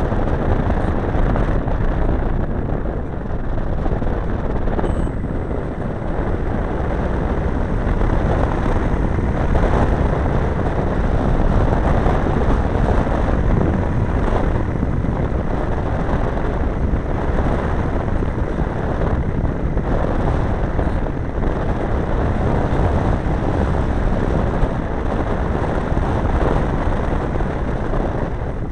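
Steady rush of wind buffeting a camera riding on a large radio-controlled model airplane, mixed with the plane's engine running, heard on board in flight as it descends toward a touch-and-go.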